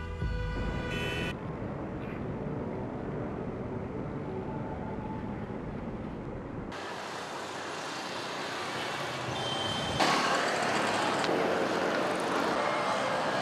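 City street ambience: a steady wash of road traffic noise. It changes abruptly twice, about seven and ten seconds in, and is louder after the second change. Music ends about a second in.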